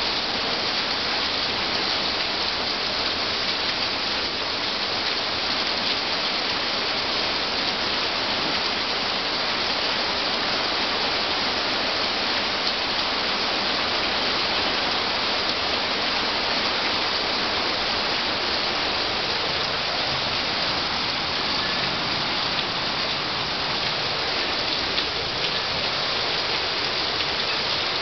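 Heavy rain of a night thunderstorm falling in a steady downpour, with no thunderclap in this stretch.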